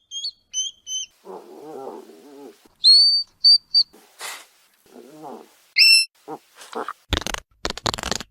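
Hedgehog vocalising: short high-pitched squeaks come in clusters, alternating with low, pig-like grunting. Near the end come a few short, harsh huffs.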